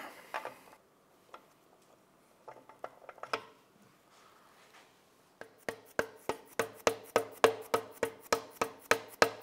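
Output flange bearing housing being worked into the crankcase bore. A few scattered clicks and scrapes come first, then about halfway through a steady run of light taps, about four a second, each with a short metallic ring.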